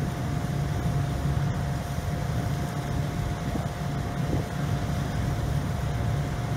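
Car ferry's engines and propellers running steadily underway: an even low rumble with a faint steady whine above it.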